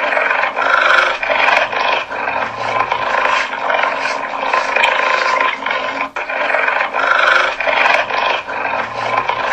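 Cheetah vocalizing with a continuous, rasping sound. The same stretch repeats about every six seconds.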